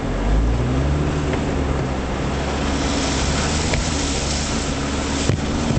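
Jeep engine running under load while driving a rough, muddy dirt trail, its pitch rising and falling with the throttle, heard from inside the cab over road and wind noise. A single sharp knock near the end.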